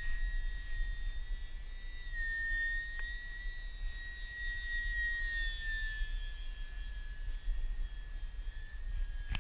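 Electric motor and propeller of a Stryker RC flying wing running on a 4S battery pack, a high steady whine that drifts slightly up and down in pitch, with wind rumbling on the microphone.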